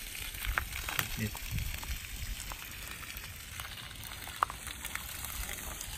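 Water from a solar-powered submersible pump jetting out of a 1½-inch PE pipe and splashing onto bare dirt: a steady hiss of spatter, with a single sharp tick a little after four seconds.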